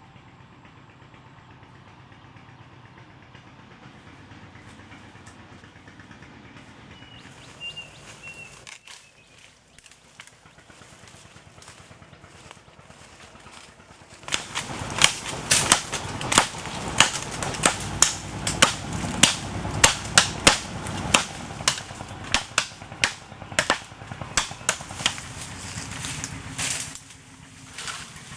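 Dry twigs and leaf litter cracking and snapping in forest undergrowth, a quick irregular run of sharp cracks that starts about halfway in and lasts some twelve seconds, over a faint steady low background hum.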